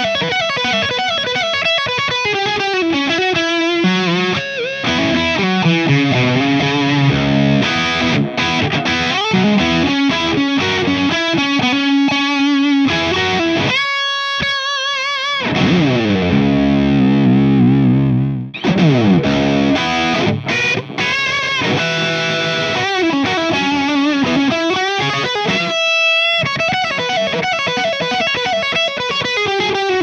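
Distorted high-gain lead electric guitar: a Fender Stratocaster HSS on its humbucker, played through small EL84 tube amp heads (the Mesa/Boogie Rectoverb 25's red channel, and the Orange OR15 by the end) and recorded through a 4x12 cabinet impulse response. Sustained lead notes with wide vibrato and a long falling pitch glide a little past the middle.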